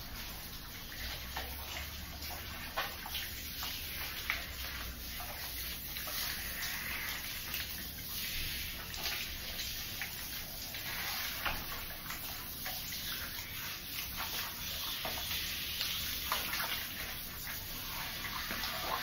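Water from a handheld shower head spraying and splashing over a wet dog's coat and streaming off it, with many small splashes throughout.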